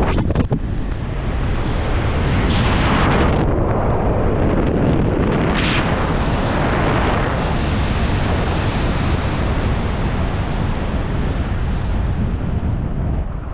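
Wind buffeting a skydiver's camera microphone during a parachute canopy descent and landing, with stronger gusts a few seconds in.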